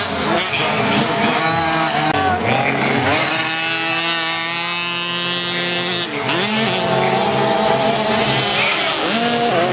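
Several small 50cc racing dirt-bike engines running together, their pitch rising and falling as the riders open and close the throttle and change gear. In the middle, one engine holds a steady high note for about two seconds.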